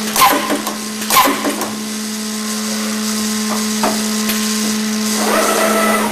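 Hermance Accu-Systems OHV CNC boring and routing machine running: a steady motor hum, with two sharp noises about a second apart near the start and a higher whirring swell near the end.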